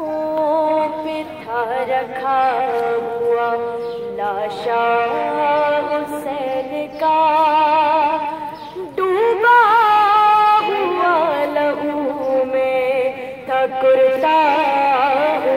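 A woman's solo voice reciting a noha, a Shia mourning lament, sung into a handheld microphone. She holds long wavering notes and glides between them, in phrases broken by short pauses.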